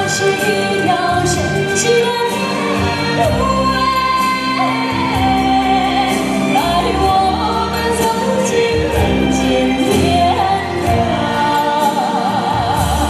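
A young woman singing into a microphone, amplified, over instrumental backing music. Near the end she holds a long note with a wide vibrato.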